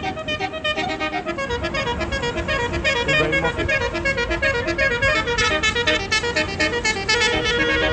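Tour bus's basuri telolet horn playing a fast melody of short, stepping notes, several a second.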